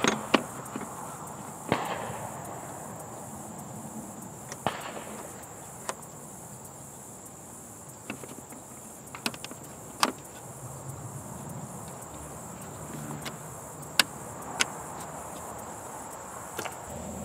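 Plastic engine cover being seated and its plastic push-pins pressed home: about nine sharp clicks and knocks at irregular intervals, over a steady high-pitched background whine.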